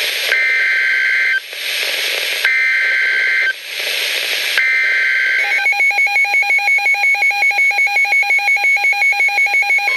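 Weather radio receiving an Emergency Alert System message: three harsh, buzzing bursts of digital SAME header data, each about a second long, with radio static between them. About halfway through, a rapid pulsing electronic alarm beep starts, about four to five pulses a second.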